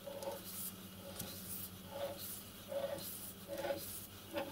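Soft repeated squeaks and clicks, a little under a second apart, from the wheels, rods and valve gear of a model steam locomotive chassis being turned over by hand.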